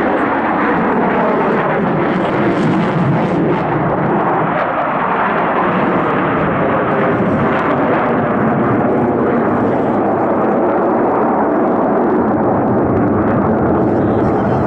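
Jet engines of a formation of Su-27 fighters flying overhead: loud, steady jet noise.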